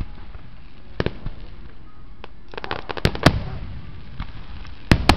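Aerial fireworks shells bursting overhead. Single sharp bangs come about a second apart, then a quick run of crackling pops with two loud bangs around the middle, and two more loud bangs near the end.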